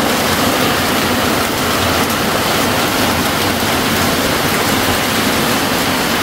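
Heavy rain falling steadily on a corrugated metal roof, an even, unbroken hiss.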